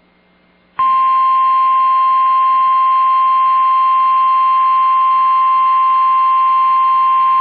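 NOAA Weather Radio warning alarm tone: a single loud, steady 1050 Hz tone that starts abruptly about a second in, after faint hiss. It signals that an emergency warning alert is about to be read.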